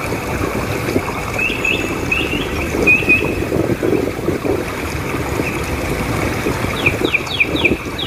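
Steady low rush of small waves washing up on a sandy beach, with a few short bird chirps between about one and a half and three seconds in, and a quick run of thin, high, falling chirps near the end.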